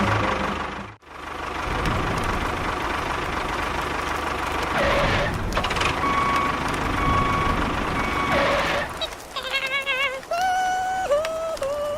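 Small electric motor of a DIY model construction vehicle whirring steadily, cut off sharply for a moment about a second in. Near the end it gives way to a sequence of wavering electronic tones that step up and down in pitch.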